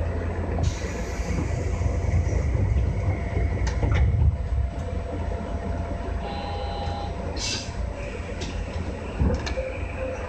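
JR West 201-series electric train heard from its driver's cab while standing at a platform: a steady electrical hum over a low rumble, with a hiss of air about a second in, a few sharp clicks, a short electronic beep about six seconds in, and a brief second hiss just after it.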